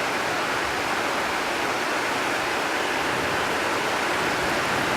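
Heavy rain pouring down steadily: an even, unbroken hiss with no thunderclap.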